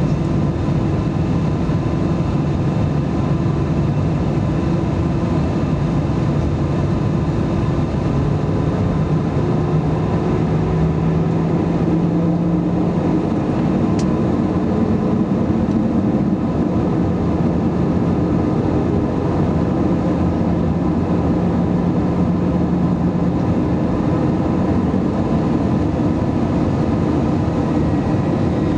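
Steady cabin noise inside an Airbus A320-214 in flight: the rush of air around the fuselage with the low hum of its CFM56-5B turbofan engines, the hum shifting slightly in pitch about halfway through.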